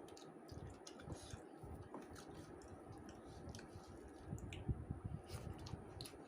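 Faint close-up eating sounds: chewing and wet squishing of rice with fish curry, with scattered small clicks of the mouth.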